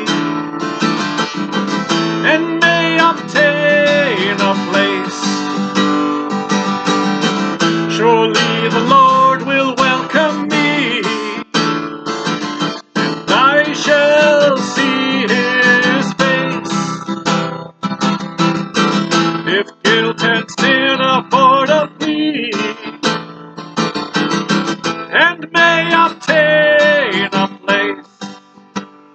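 A man singing a hymn to his own strummed acoustic guitar accompaniment; the music thins out and gets quieter near the end.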